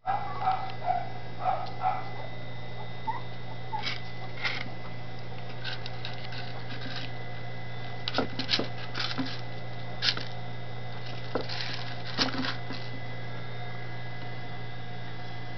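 Dachshund puppies giving a few soft squeaks in the first two seconds, then scattered scratches and small knocks as they shuffle about on wooden boards and against metal bowls. A steady low electrical hum runs underneath.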